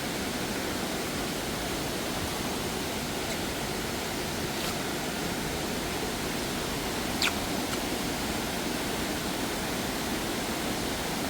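Steady rushing of a waterfall, falling water spread evenly across the range with no change in level. About seven seconds in there is one brief sharp sound above it.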